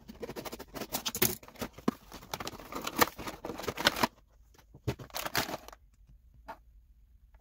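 Scissors cutting the tape on a cardboard action-figure box, then the clear plastic blister tray crinkling and rustling as it is slid out. The crackling is dense for the first few seconds, with a short burst of rustling about five seconds in and one last click shortly after.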